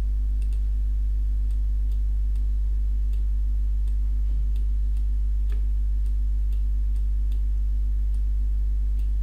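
Steady low electrical hum that holds level throughout, with faint light ticks roughly every half second over it.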